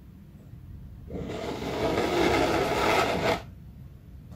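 3D-printed silk PLA nested screw parts scraping against each other as the outer sleeve is drawn up off the threaded core. A steady rasping scrape starts about a second in, lasts a little over two seconds and stops abruptly.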